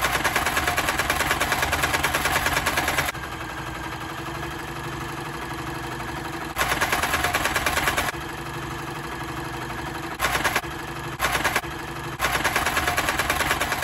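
Kenmore Ultra-Stitch 6 sewing machine running, its motor and needle mechanism making a fast, even clatter. It goes in louder stretches and quieter steady stretches, with three short loud bursts near the end.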